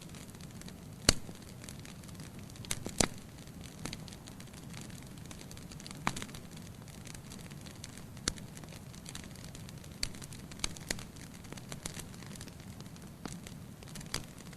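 Wood fire burning in a fireplace: a steady low rustle of flames with scattered sharp crackles and pops, the loudest about a second in and another about three seconds in.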